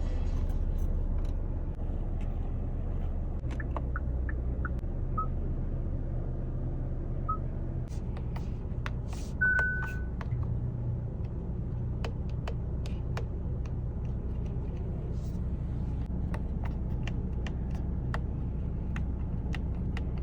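2023 Hyundai Venue Preferred's four-cylinder engine running with a steady low rumble. A few short electronic beeps come between about four and ten seconds in, and scattered light clicks follow later on.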